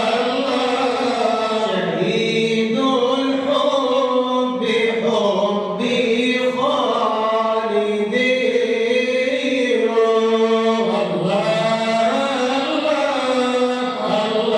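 Arabic Sufi praise poem (madih nabawi) chanted without instruments, in long, drawn-out melodic lines.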